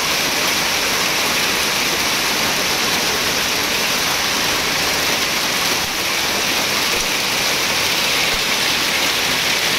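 Heavy rain mixed with hail pouring down onto a street and parked cars, a steady dense hiss.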